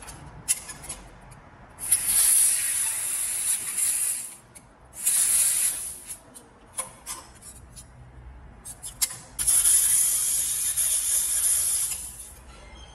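Handheld 1500 W laser welder with a cutting nozzle cutting sheet metal, its gas turned up high: three bursts of hissing gas jet, each starting and stopping sharply with the trigger, the last about three seconds long. Light clicks and taps between the bursts.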